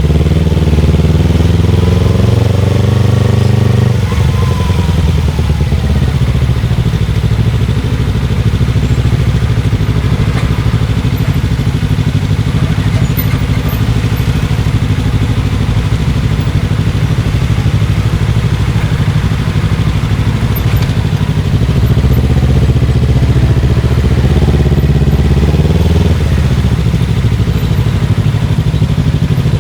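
Motorcycle engine running while riding, its pitch climbing over the first few seconds and then holding steady. It climbs again later and drops suddenly near the end, as on a gear change or when the throttle is closed.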